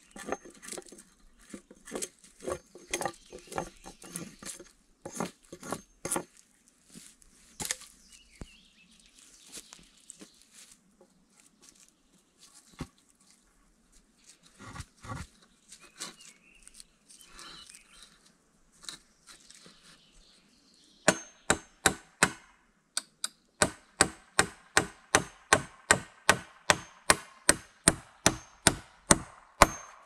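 Wood being chopped by hand, sharp blows on wood. The blows come irregularly at first, give way to softer rustling and scraping in the middle, and then turn into a steady run of about two to three strikes a second over the last nine seconds.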